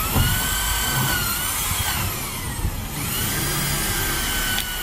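Handheld corded electric drill running at speed with a high motor whine, drilling at the steel floor channel of a wall panel; about halfway its pitch sags and it nearly stops, then it speeds up and runs steadily again.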